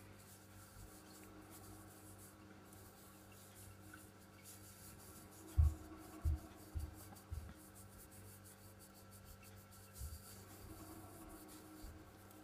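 Fingertips rubbing cleaning powder over the face of a silver Maple Leaf coin to scour off milk spots: a faint, dry scrubbing. A few soft low thumps come about halfway through and again near the end.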